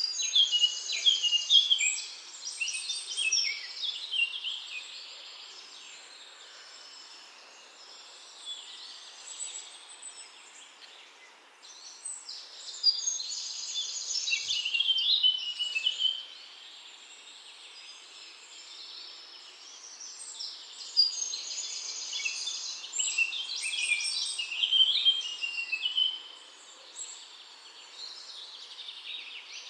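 A songbird singing in several bouts of rapid, high chirping phrases, with quieter gaps of faint steady background hiss between the bouts.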